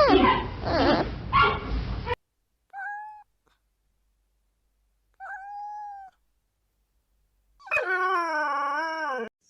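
Domestic animal calls: a burst of gliding cries that cuts off about two seconds in, then two short steady whines, and a loud, longer wavering call near the end.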